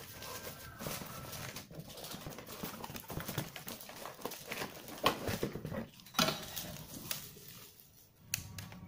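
Cardboard box being opened and pulled off a packed oil-strainer pot: rustling and scraping of cardboard flaps and packing, with a few sharp knocks about five, six and eight seconds in.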